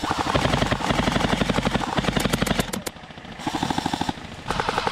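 Airsoft electric guns firing full-auto: a rapid, even clatter of shots in three bursts, broken by short pauses about three and four seconds in.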